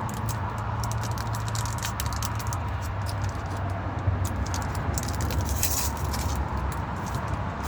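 Crinkling and clicking of a foil Pokémon booster pack wrapper and trading cards being handled, with a denser crinkle about five and a half seconds in, over a steady low hum.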